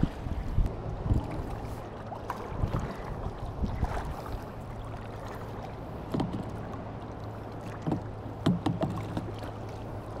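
Double-bladed paddle stroking a sit-on-top plastic kayak through choppy water: irregular splashes as the blades dip in and lift out, over a steady wash of water and wind.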